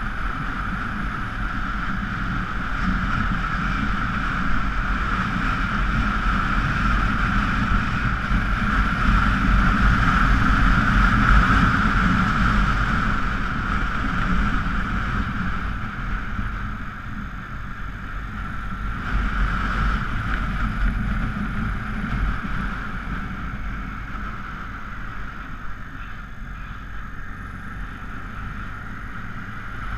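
Honda Africa Twin XRV750's V-twin engine running under way on a climbing, winding road, with wind rushing over the microphone. The noise swells to its loudest about a third of the way in, drops back, then picks up again for a while.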